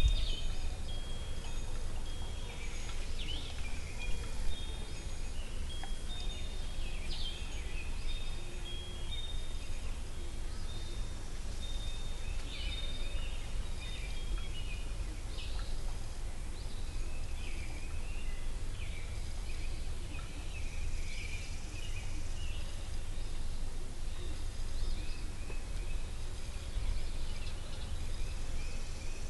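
Outdoor ambience of scattered bird chirps and short calls over a steady low rumble, with a rapid series of repeated high notes through the first half.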